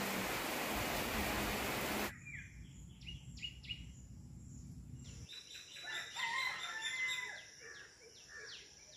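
Steady hiss of heavy rain for about two seconds, cutting off suddenly. Then small birds chirp in quick falling notes, and a rooster crows about six seconds in.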